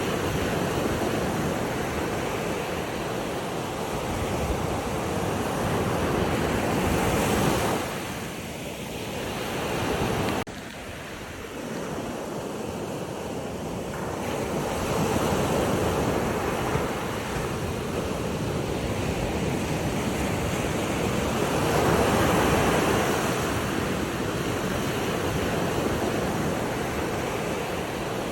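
Ocean waves breaking and washing on a shore, a steady surge that swells and eases every several seconds, with a sudden drop in level about ten seconds in.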